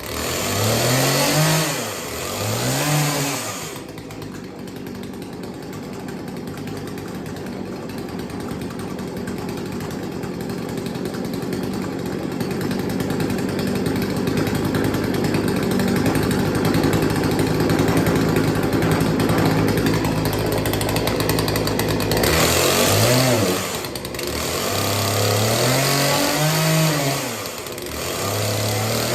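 Two-stroke chainsaw engine running. It is blipped up and down with the throttle a few times, then runs steadily and slowly gets louder for about eighteen seconds, then is blipped again near the end. This is the saw being run while its carburettor idle is tuned.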